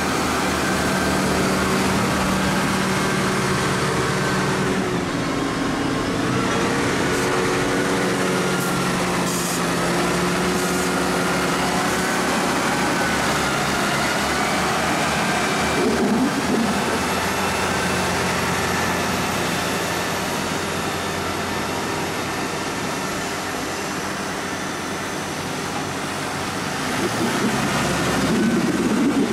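Valtra tractor's diesel engine working under load as it drives over and pushes grass silage on the clamp with a front buck-rake. The note rises and falls, with short revs about halfway through and again near the end.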